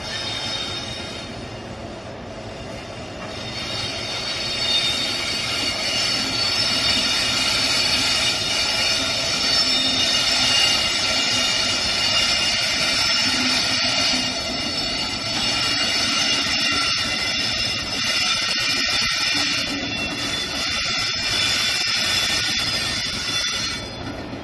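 Several coupled Indian Railways electric locomotives running past, with the rumble of their wheels on the rails under a steady high whine of several tones. It grows louder over the first few seconds.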